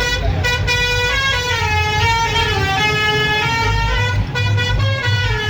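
Bus's musical horn playing a tune, a run of held notes stepping up and down with a slow slide down in the middle, over the bus engine's low rumble.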